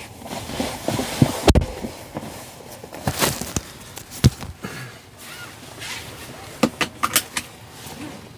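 Handling noise inside a parked car's cabin: scattered knocks, clicks and rustling as the driver shifts in his seat and handles things. The loudest knocks come about a second and a half in and about four seconds in, with a quick run of clicks near the end.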